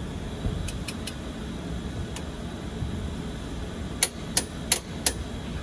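Scattered sharp clicks, then four louder ones in quick succession about four seconds in, over a steady low rumble.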